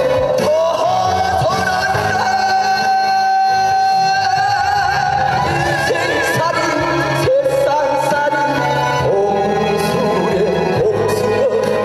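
A male singer sings live into a handheld microphone over musical accompaniment, holding long notes, one of them with a wavering vibrato.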